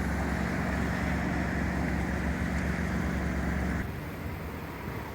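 A car engine running steadily with a strong low tone. A little under four seconds in, the sound cuts abruptly to a quieter, more even background.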